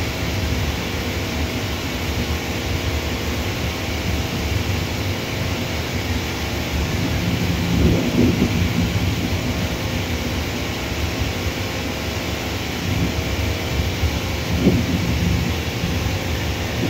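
A steady low rumble of airliner jet engines from aircraft taxiing nearby, with faint steady whine tones and small swells in loudness about eight and fourteen seconds in.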